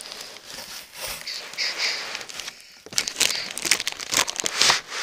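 Packaging crinkling and rustling as it is pulled out of a laptop box, with many small crackles and clicks. It gets louder and busier about three seconds in.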